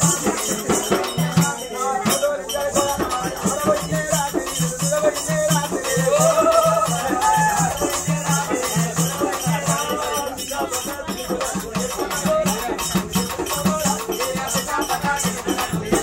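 Music driven by a fast rattling, shaker-like rhythm over an evenly repeating low beat, with a melody and voices mixed in.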